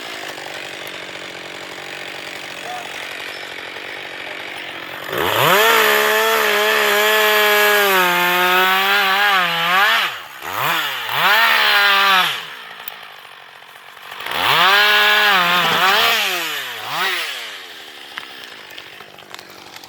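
Husqvarna 560XP two-stroke chainsaw idling, then run up to full throttle three times, each time dropping back to idle, with a short blip near the end. The pitch sags slightly during the long first run, as when the chain is cutting wood.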